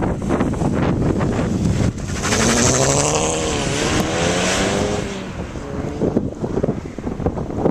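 Volkswagen Golf hatchback accelerating hard away from a standing start: the engine revs up, dips briefly as if shifting, climbs again, then fades after a few seconds as the car moves off. Wind rumble on the microphone runs underneath.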